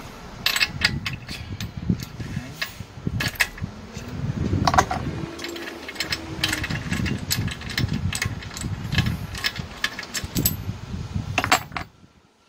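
Clinks, clicks and knocks of a metal spark plug wrench being picked up and turned on the spark plug of a four-stroke brush cutter engine, loosening the plug, with bumps of handling against the engine. The clicks come irregularly throughout, with a cluster shortly before a brief quiet near the end.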